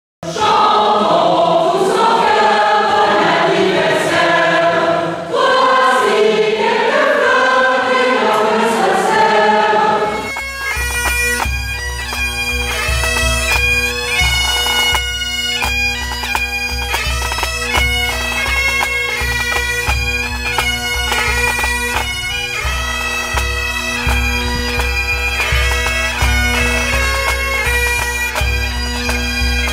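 A choir singing for about the first ten seconds, then a sudden change to a pipe band: Great Highland bagpipes playing a melody over their steady drones, with regular bass drum beats underneath.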